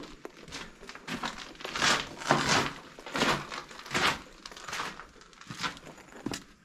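Footsteps crunching over broken glass and grit on a debris-strewn floor, a gritty crunch with each step, about one to two a second.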